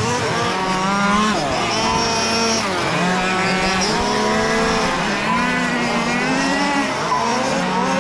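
Several large-scale radio-controlled F1 race cars running laps together, their small engines overlapping and repeatedly rising and falling in pitch as they accelerate and ease off.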